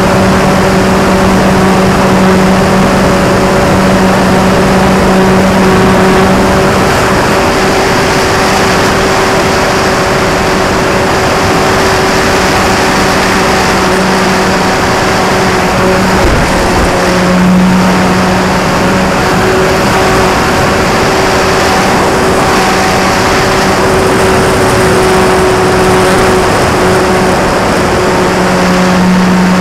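Electric motor and propeller of an RC Sukhoi model airplane in flight, heard from its onboard camera: a steady buzzing drone over loud wind rush. The pitch sags a little for several seconds in the middle, drops out briefly about sixteen seconds in, then comes back up as the throttle is opened again.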